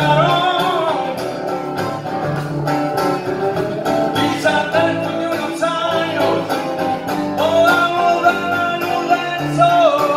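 Live band playing a song: a man sings over strummed acoustic guitar, electric guitar and steady hand-drum beats from congas.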